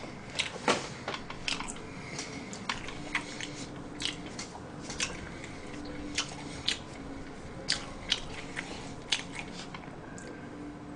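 Close-up chewing of crunchy fried chicken: irregular crisp crackles and crunches of the fried batter.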